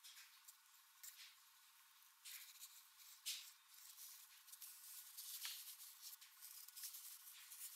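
Near silence with faint scratching and rustling from small handwork: a hobby knife and fingers working on a small wooden lure over a paper towel, in a few brief scrapes.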